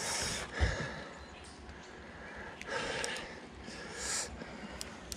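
A person breathing out in three short, hissy puffs, with one low thump about half a second in.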